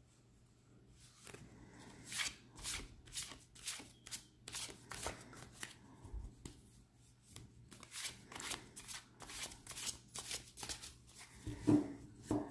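A deck of gilt-edged tarot cards being shuffled by hand without riffling, which spares the cards. The cards slap and slide in quick strokes about two a second, starting about two seconds in. There is a brief louder sound near the end.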